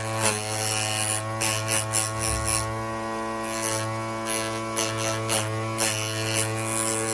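Background music holding one sustained, drone-like chord, with a few short bursts of rattling clicks over it.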